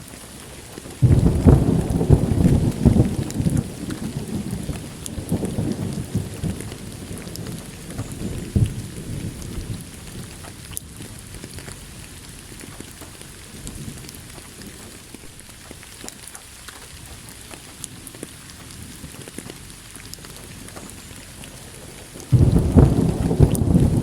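Steady rain with thunder: a sudden clap about a second in that rumbles away over several seconds, and a second clap near the end.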